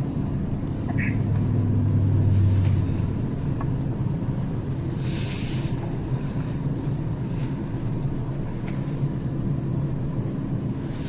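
A vehicle engine running steadily with a low drone, swelling briefly a second or two in, with a short hiss about five seconds in.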